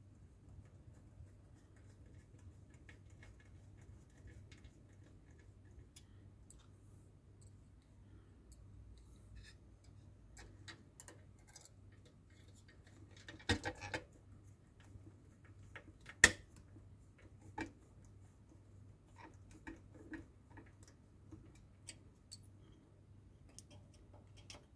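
Faint ticks and scrapes of a small screwdriver turning tiny screws into a scale-model car door, with a few sharper clicks about halfway through.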